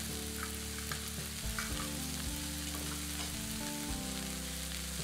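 Vegetables frying in oil in a hot cast iron skillet: a steady sizzling hiss with a few faint crackles.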